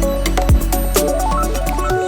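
Electronic background music: synth notes over deep kick-drum hits that drop in pitch.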